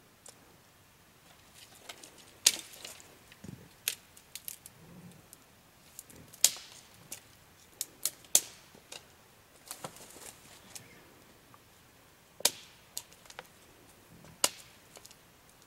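Wood fire crackling: sharp, irregular pops and cracks, roughly one or two a second, some much louder than others, over a quiet background.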